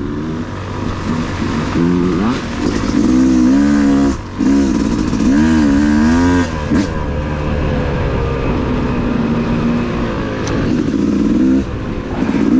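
Yamaha YZ250 two-stroke dirt bike engine being ridden, its pitch rising and falling in several throttle surges over a steady low rumble.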